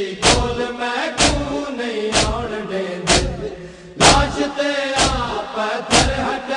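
A group of men chanting a Punjabi noha in unison, keeping time with matam: hands striking chests together in a sharp beat about once a second.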